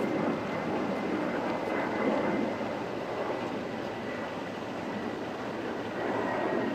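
A steady engine rumble, with a faint high tone held throughout.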